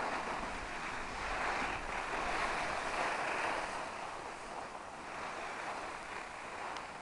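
Snowboard sliding and scraping over packed snow: a steady hiss that swells in the first few seconds and eases off after about four seconds.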